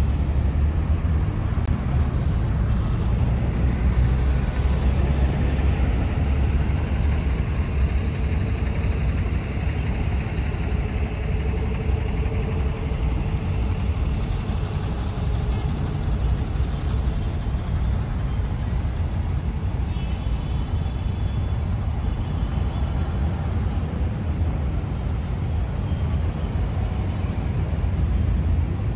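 Steady city traffic noise: a continuous low rumble of cars and buses passing on nearby streets.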